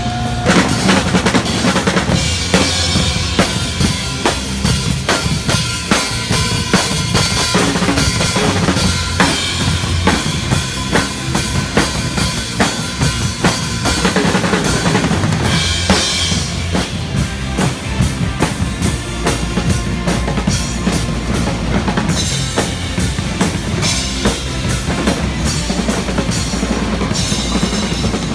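Many drum kits played together, a fast, steady beat of bass drum, snare and cymbals, the nearest kit loudest.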